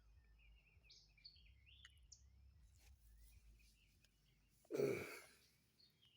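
Faint bird chirps over quiet outdoor background. About five seconds in comes a short, louder human vocal sound with a falling pitch, like a sigh.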